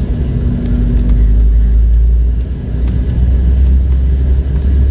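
Embraer 190 cabin noise on approach: a steady low rumble from its turbofan engines and the airflow, heard from inside the cabin, with a thin steady hum that stops about two seconds in.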